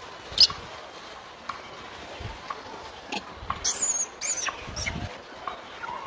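Macaques in a crowded feeding troop giving short, high-pitched squeals. One loud squeal comes about half a second in and a cluster comes around four seconds in, over scattered clicks and rustling.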